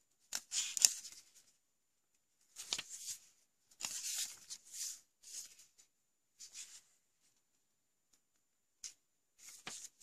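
Pages of a small paper instruction booklet being turned and handled: a series of short, dry paper rustles. The loudest comes about half a second in, several more follow through the middle, and a couple come near the end.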